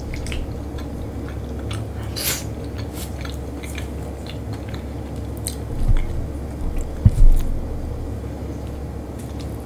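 A person chewing and biting food, with scattered small clicks and two dull knocks about six and seven seconds in, over a low steady hum.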